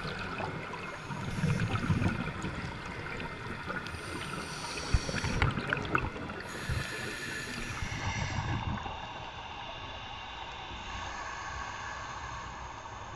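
Scuba breathing heard underwater: a steady hiss with three surges of rumbling exhaled bubbles a few seconds apart, quieter over the last few seconds.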